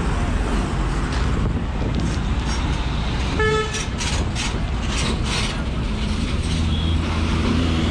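Bus and vehicle engines running in a bus park, with a vehicle horn honking once, briefly, about three and a half seconds in.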